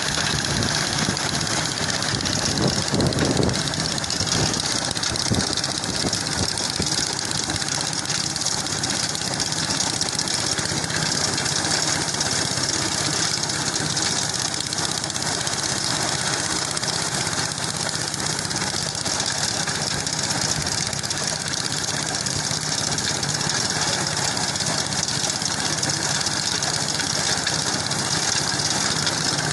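An engine running steadily at a constant pace.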